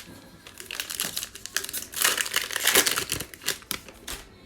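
Plastic wrapper of an NBA Hoops Premium Stock trading card pack being torn open and crinkled, a dense run of crackling that is loudest in the middle and dies away shortly before the end.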